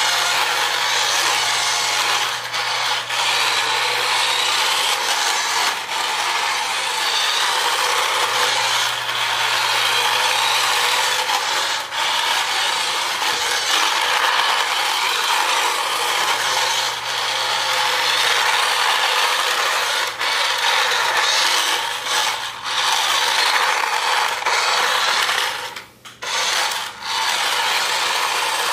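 Mini radio-controlled toy car running, its small electric drive motor and plastic gears whirring steadily. The whir cuts out briefly twice near the end.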